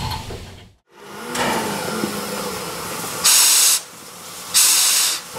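Steam locomotive hissing steam steadily, with two loud, short bursts of steam about a second and a half apart.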